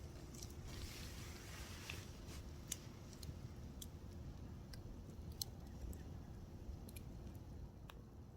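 Burnt-down campfire burning quietly, with sparse sharp crackles and pops every second or so over a low steady rumble and a brief soft hiss about a second in.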